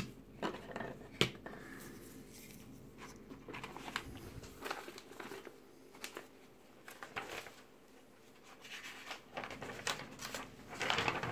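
Handling noise at a modelling bench: light clicks and knocks of plastic model parts being moved and set down on a cutting mat, with paper rustling as the instruction sheet is shifted.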